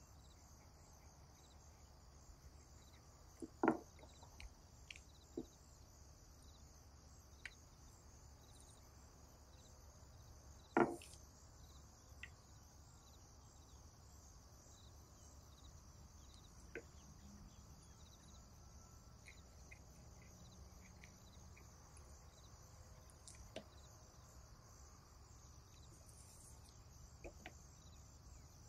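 A few soft knocks and clicks from a steel cutter and rice-cake dough being handled on a wooden board, the two loudest about 4 and 11 seconds in, over a faint steady high hiss.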